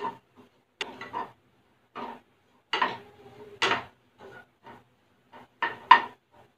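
A spatula scraping and stirring thick masala paste around a nonstick frying pan, sautéing it in oil, in short irregular strokes with the loudest scrapes about halfway through and near the end.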